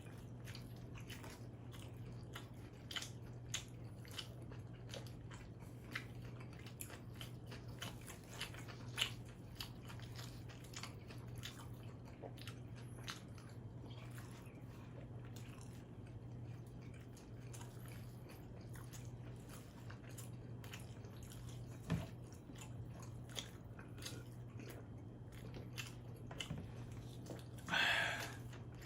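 Close-up sounds of someone chewing and biting pizza: many small wet clicks and crunches, over a steady low hum. There is a louder knock about two-thirds of the way in and a short, louder rush of noise near the end.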